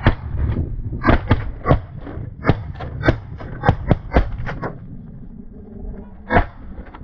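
Several hunters' shotguns firing a rapid, overlapping volley: about fifteen shots in under five seconds, then a short lull and one last shot near the end.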